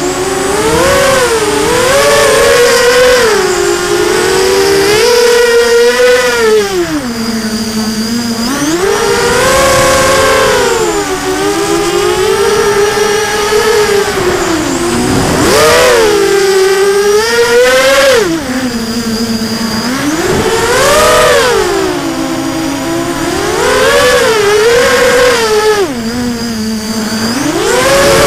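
Four 2204 2300kv brushless motors and propellers of an FPV racing quadcopter on a 4S battery, recorded from its onboard camera, whining in a stack of tones whose pitch rises and falls every second or two as the throttle is worked in flight.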